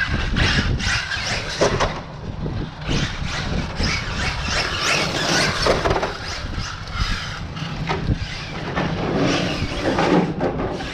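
Electric Hyper SSE RC car on a 6S battery driven hard on tarmac: the brushless motor whining up and down with the throttle and the tyres squealing, over a constant low rumble of wind on the microphone.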